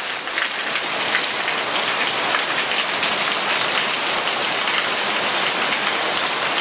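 Heavy rain falling steadily on foliage and roofs, a dense, even hiss.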